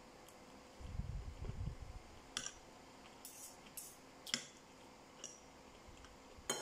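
Metal spoon and fork clinking and scraping against a white ceramic plate during a meal: about six sharp, short clinks spread over several seconds. A low muffled rumble about a second in.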